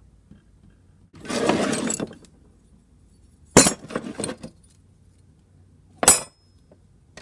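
Old metal hand tools clinking and clanking as they are rummaged and set down: a scraping rummage about a second in, a sharp clank with a few lighter clinks in the middle, and one more clank near the end.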